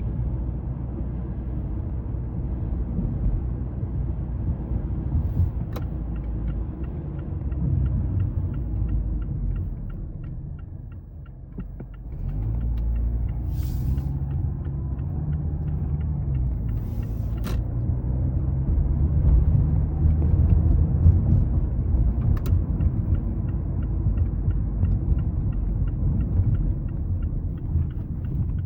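Low, steady road and engine rumble of a Mazda 3 driving on a wet highway. The rumble eases off briefly about eleven seconds in, then builds again.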